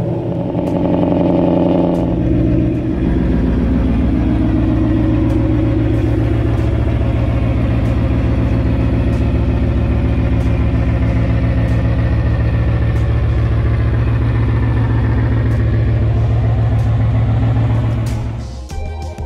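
Car engine and exhaust running loud and steady. Its pitch shifts in the first few seconds, then holds steady, and the sound drops away near the end.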